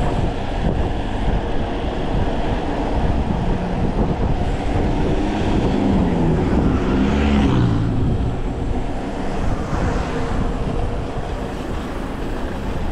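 Steady, heavy wind rush and road noise from a Brompton folding bike speeding downhill. A pitched hum bends up and then down briefly around the middle, from a passing motor vehicle.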